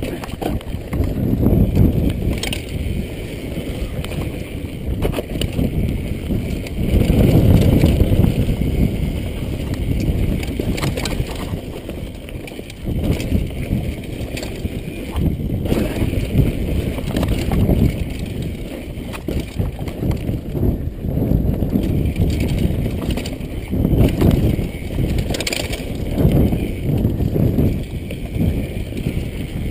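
Mountain bike descending a dirt trail: wind buffeting a handlebar-mounted camera microphone and tyres rumbling over the ground, swelling and easing with speed, with a few sharp knocks from the bike over bumps.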